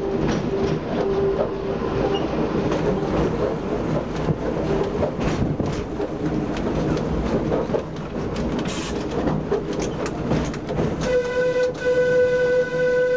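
Wooden tramcar of the Sóller tramway running along its track, with a steady rumble and scattered clicks from the wheels on the rails. About eleven seconds in, a horn sounds one steady note for about two seconds.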